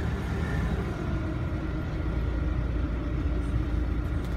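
Canal tour boat's engine running with a steady low drone.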